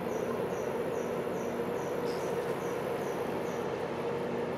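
Steady low hum, with a high chirp repeating about twice a second over it that stops near the end.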